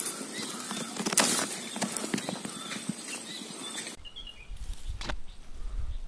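Close handling noise on a phone microphone: crackling clicks and small knocks of fingers, twigs and leaves brushing against it. About four seconds in, it gives way abruptly to a quieter low rumble.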